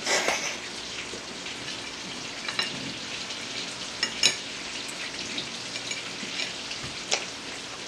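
A fork clicking and scraping a few times on a ceramic plate over a steady hiss.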